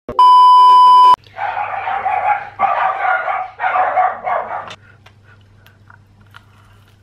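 A loud, steady test-tone beep of the kind that goes with TV colour bars, lasting about a second. It is followed by three rough, noisy bursts of about a second each that stop a little before five seconds in.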